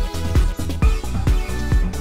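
Background electronic dance music with a steady kick-drum beat, a little over two beats a second.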